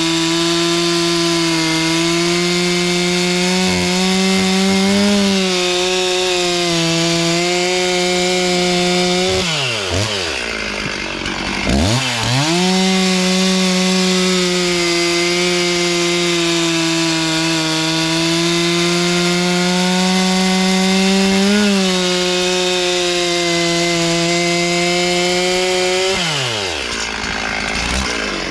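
Stihl 036 Pro two-stroke chainsaw with a 25-inch bar running at full throttle while cutting through wood. The engine note holds steady under load. It winds down about nine and a half seconds in, picks back up to full revs about two seconds later, and drops off again near the end.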